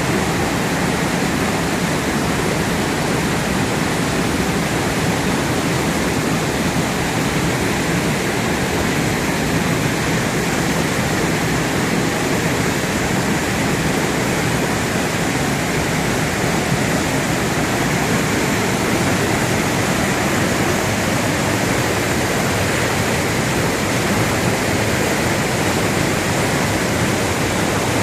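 Waterfall in flood after heavy rain: a large volume of water pouring down, making a loud, steady, unbroken rush.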